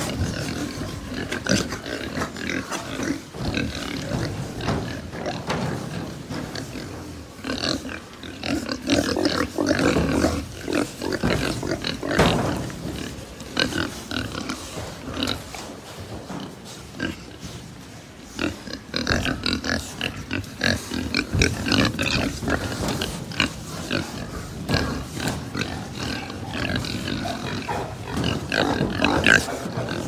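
A pen of young pigs grunting, many overlapping and irregular, with a quieter spell around the middle.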